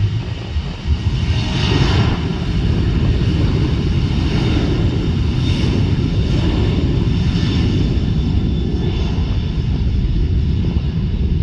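Jet airliner engines: a loud, steady rumble with a faint high whine above it.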